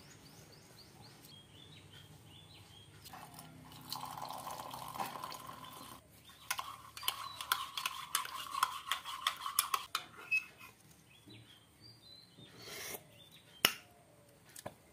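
Metal spoon stirring a drink in a ceramic mug, clinking rapidly against the sides for a few seconds, with a couple of single taps later on.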